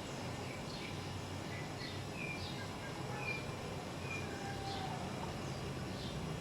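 Faint, scattered bird chirps and short whistled tweets, a dozen or so brief notes, over a steady low hum of city background noise.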